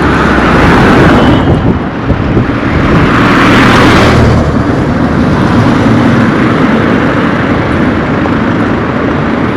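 Road traffic on a highway, vehicles passing close by. The rushing noise swells near the start and again around three to four seconds in, then settles to a steadier hum.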